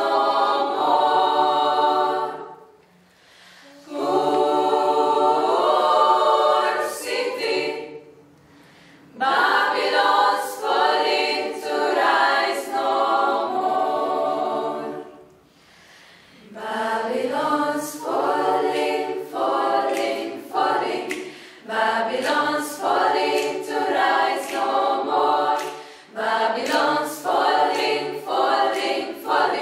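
Mixed high-school choir singing a cappella, in phrases broken by short pauses about 3, 8 and 16 seconds in; from about 17 seconds the singing moves in short, clipped notes.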